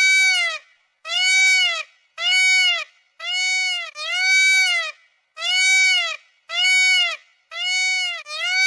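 Peacock calling over and over, loud repeated cries about one a second, each rising then falling in pitch.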